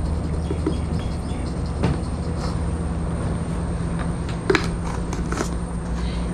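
A steady low hum, with a few light clicks and knocks as a jar of prawn bait is handled and fished from over a collapsible net prawn trap.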